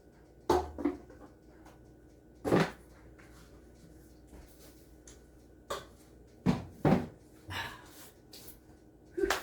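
Irregular knocks and clunks of kitchen utensils against a mixing bowl while flour is measured in, about eight in all, the loudest about half a second in, near two and a half seconds and around seven seconds in.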